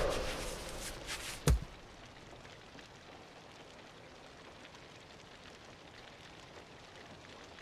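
Soundtrack sound effects: a swelling whoosh that fades, then a single sharp hit with a deep thud about a second and a half in, followed by a faint steady hiss.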